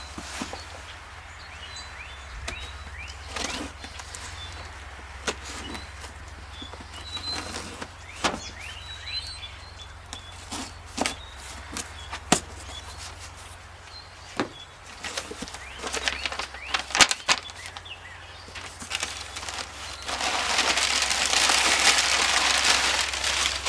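Small packages being handled and opened: scattered sharp clicks and knocks, then a few seconds of loud rustling of packaging about twenty seconds in. Birds chirp faintly in the background.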